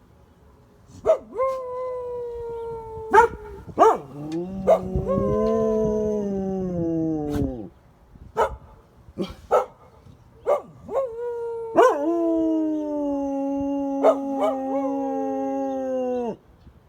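Dogs howling: long drawn-out howls that sag in pitch, two voices sometimes overlapping, with short yips and sharp clicks between.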